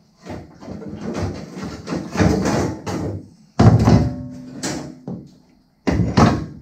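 Irregular metal clanking and knocking as a gearbox and driveline parts are shifted by hand in a stripped car's transmission tunnel. A sharp clang about three and a half seconds in rings on briefly, and another loud knock comes near the end.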